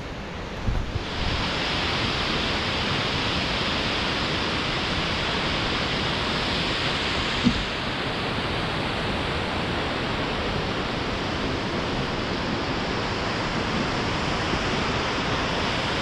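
Steady rush of Ramboda Falls, the waterfall running full, getting louder about a second in. A single sharp click a little before halfway.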